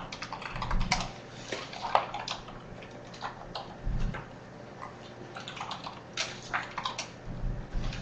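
Irregular computer-keyboard typing and clicking, with a few dull low thumps.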